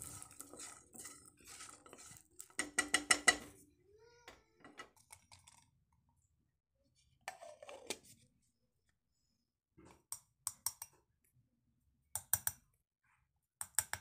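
Metal kitchenware clinking and clattering in several short bursts with pauses between: a steel mixer-grinder jar and a spoon being handled and tapped.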